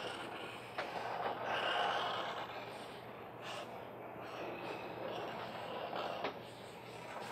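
Sharpie permanent marker drawn across paper in short strokes, a scratchy squeaking, with a few sharp clicks between strokes.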